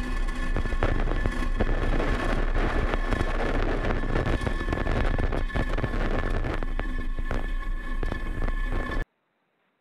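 Falcon 9 first stage's nine Merlin engines during ascent: a steady crackling rumble that cuts off abruptly about nine seconds in.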